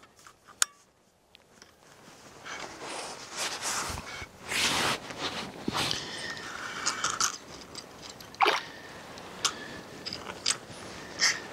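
Close handling noise: rustling, scraping and crunching as gloved hands and a winter jacket move while working with a fishing line and jig, with a few sharp clicks in the last few seconds.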